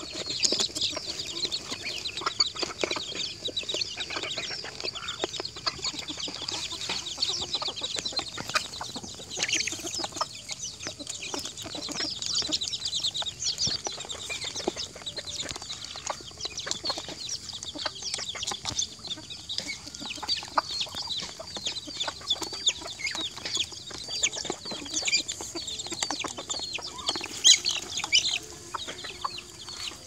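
A mixed flock of chickens and ducks feeding at a tray: clucking and many short high-pitched calls, over constant quick ticks and clicks of bills pecking at the food.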